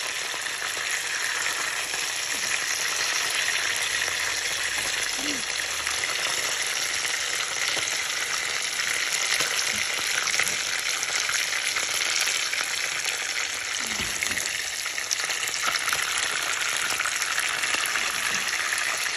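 Whole fish frying in hot oil in a pan, the oil sizzling steadily.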